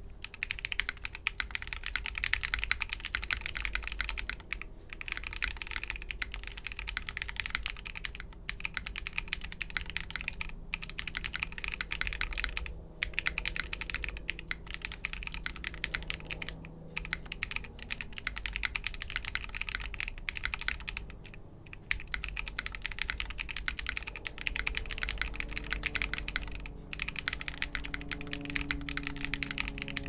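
Steady fast typing on a KBDfans aluminum mechanical keyboard with lubed KTT Wine Red linear switches in an aluminum plate, o-ring gasket mounted: a dense run of keystroke clacks, broken by a few short pauses.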